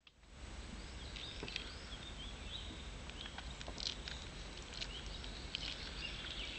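Small birds chirping and twittering in quick short phrases, over a steady low rumble, with a few soft clicks.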